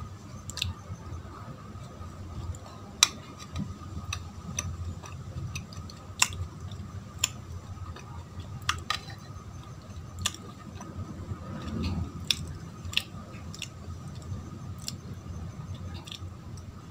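Close-up chewing of soft Indian milk sweets (barfi), with about ten sharp wet mouth clicks and smacks at irregular moments. A steady low hum and a faint high whine sit underneath.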